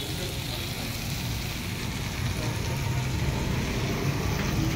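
Steady low rumble with an even hiss, the background din of a wok stall's gas burners and the street, with no clear clatter of ladle or pan.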